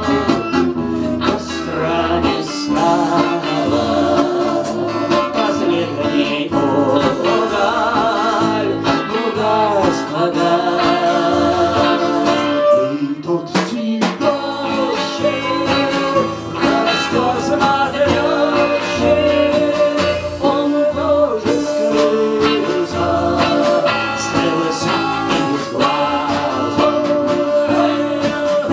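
Live folk-style band playing a song: strummed acoustic guitar, electric bass, violin and drums, with singing over them.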